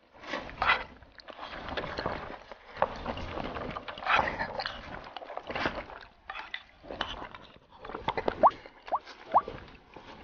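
Several people eating fast, slurping hot and sour glass noodles from wooden bowls, with irregular clicks of chopsticks and spoons. A few short rising squeaky slurps come near the end.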